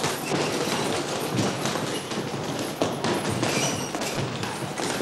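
Busy boxing-gym training noise: a steady din of many quick, irregular thumps and taps.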